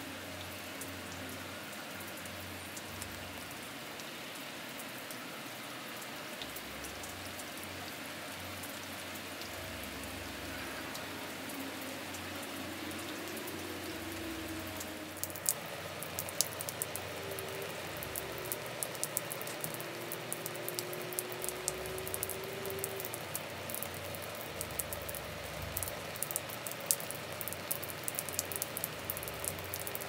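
Rain falling steadily, a constant hiss. About halfway through, close drops begin hitting with frequent sharp ticks, and it grows a little louder.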